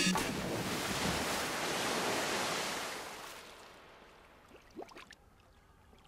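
A body splashes into a shallow pond, and the water churns and foams in a rushing wash that fades away over about three seconds. A few faint ticks follow near the end.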